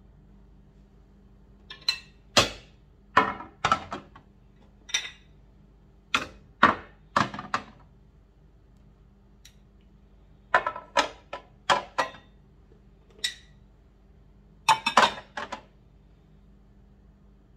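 Small glass serving dishes set down and shifted on a ceramic platter, giving a series of sharp clinks and knocks in several short clusters.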